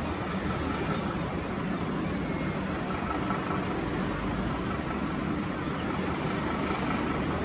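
Steady low hum of a distant engine, even throughout.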